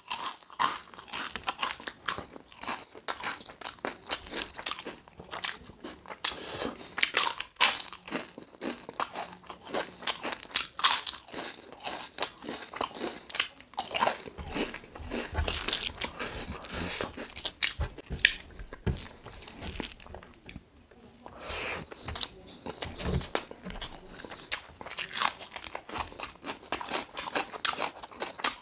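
Close-up chewing and biting while eating chicken drumsticks with rice: a dense, irregular run of sharp mouth clicks and crunches.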